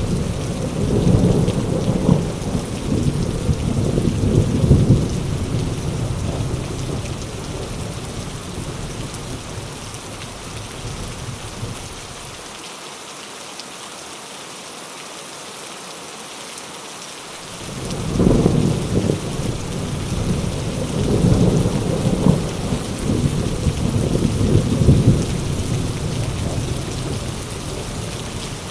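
Heavy rain falling steadily with thunder rolling: one rumble dies away in the first half, and after a few seconds of rain alone another rumble rolls in about 18 seconds in and swells twice before easing off.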